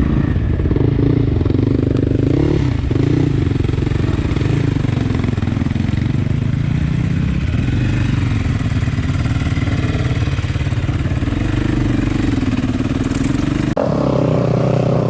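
Dirt bike engine running under way, its note rising and falling as the throttle is worked. Near the end the engine sound changes abruptly to a different, steadier note.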